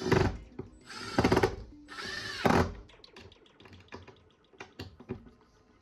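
Cordless impact driver run in three short bursts, driving screws into plywood.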